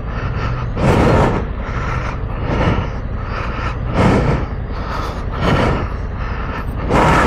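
Honda Africa Twin's parallel-twin engine running steadily at low speed on a dirt track, with loud rushes of noise about every second and a half.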